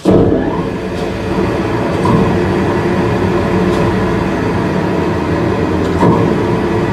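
Wolfking C-250 UNI frozen meat grinder switched on: the heavy machine starts abruptly and runs loud and steady.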